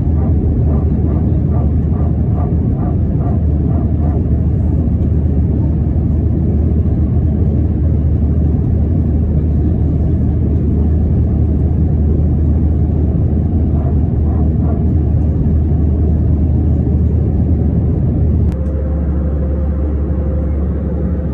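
Airbus A321 cabin noise during the climb after takeoff: the steady roar of the jet engines and airflow, heard from a window seat. About 18 seconds in the sound changes abruptly to a slightly quieter steady drone with a faint constant hum.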